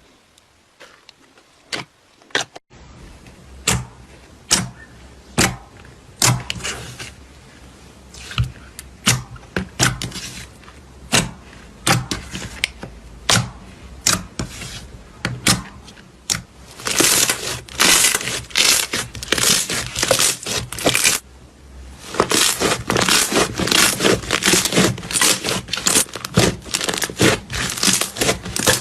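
Hands working slime, making a run of sharp crackling pops. The pops are spaced out at first, then come fast and dense in the last third.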